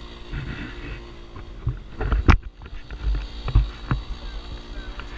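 Motorcycle engine running steadily while riding, under wind rushing on the camera microphone, with a few sharp thumps, the loudest about two seconds in and others a little after three and a half seconds.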